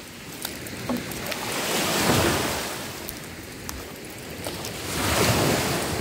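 Small Black Sea waves breaking and washing up a sandy shore, the surf swelling twice, about two seconds in and again about five seconds in.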